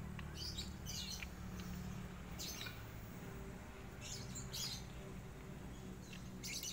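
Short, high-pitched animal chirps, about six scattered through a few seconds, over a steady low background rumble.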